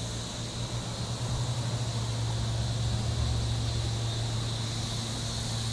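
A steady low hum that gets stronger about a second in, under a constant high insect drone.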